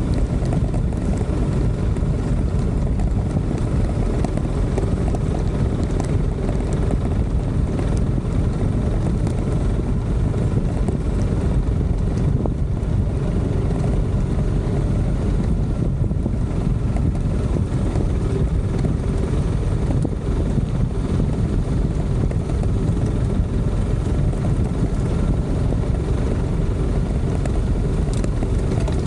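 Motorcycle engine running steadily at riding speed on a dirt road, with wind rushing over the microphone as a dense low rumble.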